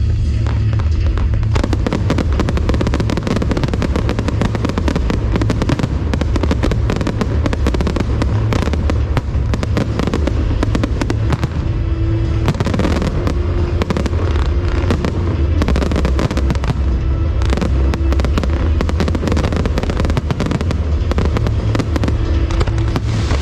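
Fireworks show: a dense, rapid crackle of many small bursts and bangs, starting about a second and a half in, over a steady low rumble.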